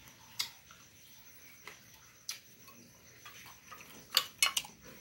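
Metal spoon clinking and scraping against a glass plate heaped with fried pork ribs and farofa, in a few scattered sharp clicks, with the loudest two close together near the end.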